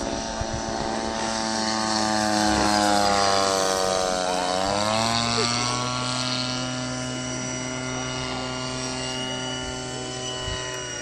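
Radio-controlled model Cessna 182's engine running in flight. It gets louder about three seconds in while its pitch sinks, then the pitch climbs back about four and a half seconds in and holds steady.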